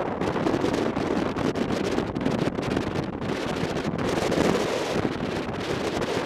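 Wind buffeting the microphone of a camera on a moving motorcycle: a dense, gusting rush with no clear engine note.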